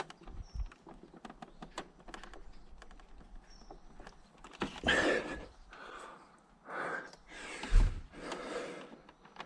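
Small clicks and taps of fingers straining at a tight plastic indicator bulb holder, then several heavy breaths of effort from the second half on, with a short low thump near the end.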